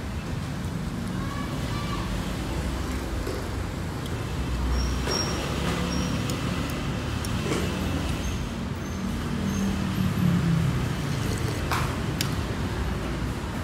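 Steady rumble of passing street traffic, swelling as an engine goes by about ten seconds in, with a few light clinks of a metal spoon and chopsticks against a soup bowl.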